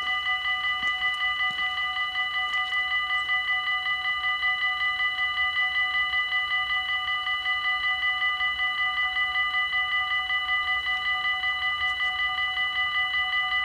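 Dutch level-crossing warning bells ringing in a fast, even, unbroken rhythm. This signals that the barriers are down and a train is approaching.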